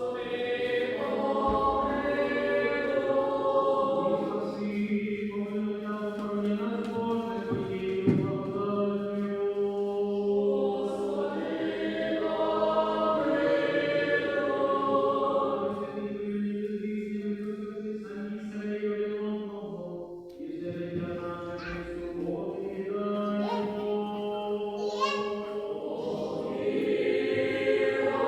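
Church choir singing a slow liturgical chant in several parts, a low note held steady beneath the upper voices. The singing dips briefly about twenty seconds in.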